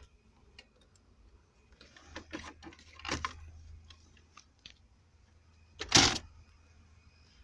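Hands working on a loose kill-switch wire: scattered small clicks, taps and rattles of handling, with one louder short burst of noise about six seconds in.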